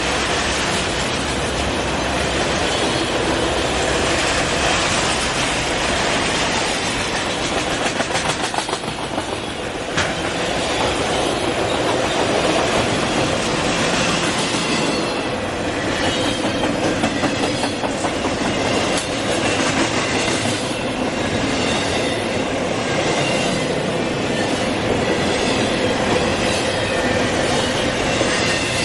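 Freight train cars rolling past: a steady rumble and clatter of steel wheels over the rail joints, with a sharp click about ten seconds in and faint wheel squeal in the second half.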